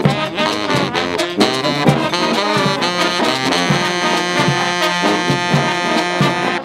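Brass-band music: horns playing a melody over regular drum strikes.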